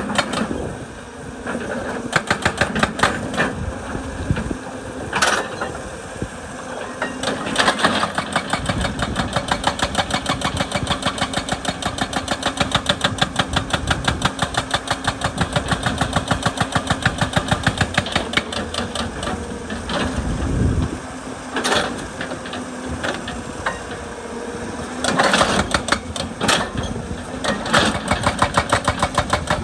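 Excavator-mounted hydraulic rock breaker hammering rock in a fast, even run of blows over the excavator's running diesel engine. A few louder single knocks stand out, around five, eight, twenty-two and twenty-five seconds in.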